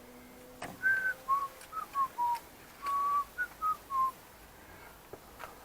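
A person whistling a short tune of about ten notes, with a few faint clicks.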